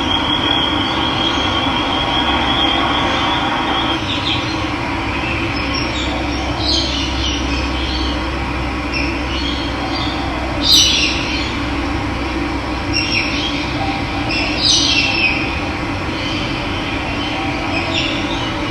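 Steady rushing of running water, with short high bird chirps breaking in now and then, the loudest about eleven seconds in. A thin, steady high trill runs through the first four seconds.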